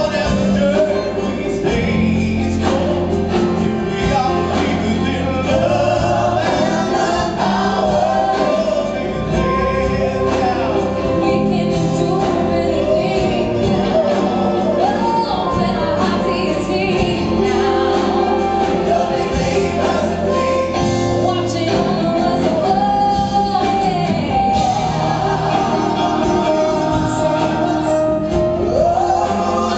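Live church worship band (drum kit, congas, keyboards, electric bass and guitars) with a group of male and female singers performing an upbeat Christian worship song.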